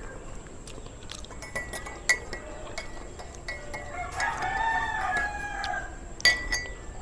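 A rooster crowing in the background, with one long crow lasting about two seconds starting about four seconds in. There are a few light clinks of a spoon and dishes, one near the end.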